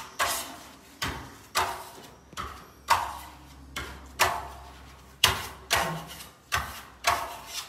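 Steel trowel pressed and dragged across lime-putty Venetian plaster to polish it: a run of about a dozen short scraping strokes, each a sharp rasp that fades quickly, in an uneven rhythm of one or two a second.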